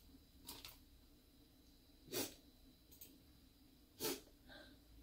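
A child's short breaths through the nose, four or five quick puffs in a quiet room, the loudest about two seconds in.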